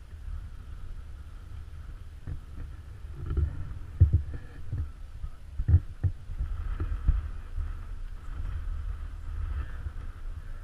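Wind buffeting the camera microphone: a steady low rumble with heavier gusting thumps about four to six seconds in.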